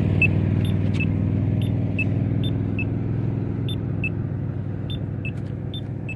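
Accessible pedestrian signal push buttons sounding their locator beeps: two short beeps of different pitch, each repeating about once a second and out of step with each other. Under them a vehicle engine rumbles steadily and slowly fades.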